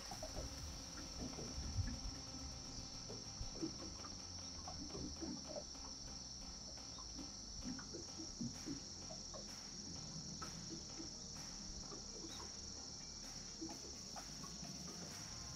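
Crickets chirring in one steady, unbroken high trill, with a few faint scattered taps and small knocks underneath.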